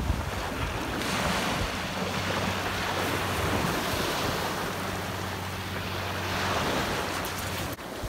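Small waves breaking and washing up over a sand-and-pebble beach, with wind buffeting the microphone and a steady low hum underneath. The sound breaks off suddenly near the end.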